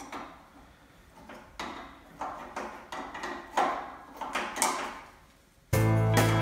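Hand wrench being worked on a bolt of a VW Beetle 1600 dual-port engine, making uneven metal scraping strokes about twice a second. Music starts abruptly near the end.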